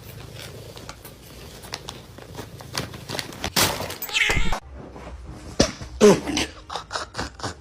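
A cat meowing: one longer call about three and a half seconds in and a shorter one around six seconds, with small clicks and knocks between.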